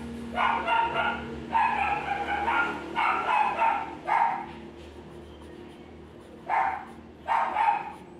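A dog barking in quick runs for the first few seconds, then a pause and two more barks near the end, over a faint steady low hum.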